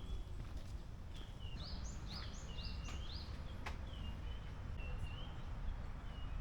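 Small birds calling over a low outdoor rumble: short repeated chirps throughout, with a quick run of rising whistled notes about two seconds in. A few sharp clicks are mixed in.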